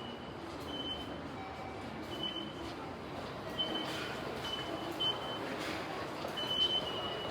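Short high-pitched electronic beeps, repeated roughly once a second at an uneven pace, over a steady hum of road and rail traffic.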